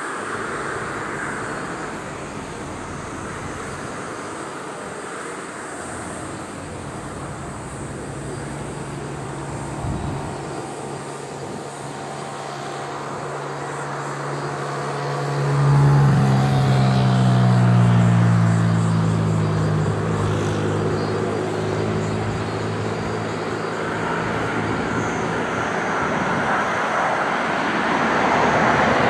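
Jet noise of a Boeing 787-8 on final approach, a broad rush that builds steadily louder toward the end as the airliner nears. About halfway through, a passing road vehicle's low engine drone swells to be the loudest sound and falls in pitch as it goes by.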